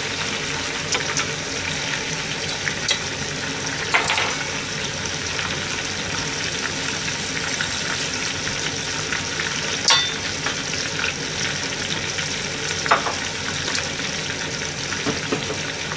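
Cabbage kakiage deep-frying in hot oil: a steady sizzle, with a few sharp clicks about four, ten and thirteen seconds in.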